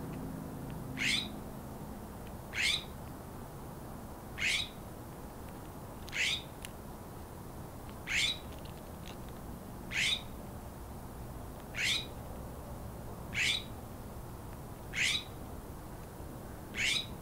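A bird giving a short, sharp high call over and over at an even pace, ten times, about one every two seconds.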